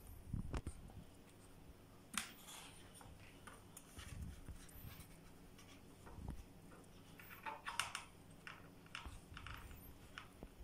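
Scattered soft clicks and knocks of plastic fender-mount parts being handled and fitted on a bicycle seat post, at irregular intervals.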